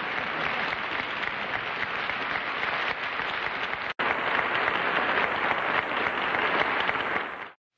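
Studio audience applauding steadily, broken by a split-second gap about four seconds in and cut off near the end.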